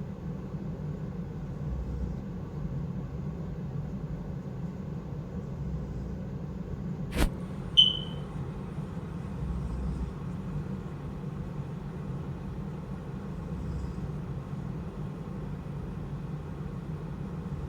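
A person snoring: a steady low rumble that swells slowly every few seconds with each breath. A sharp click about seven seconds in, followed by a brief high beep.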